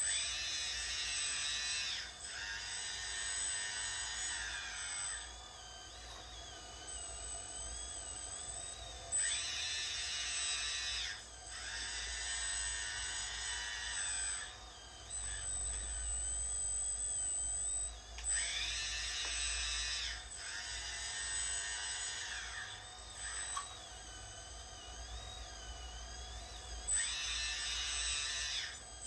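Electric hydraulic pumps of radio-controlled excavators whining as the booms, arms and buckets are worked. The whine comes in runs of two to three seconds that start and stop, rising and wavering in pitch as the load on the hydraulics changes.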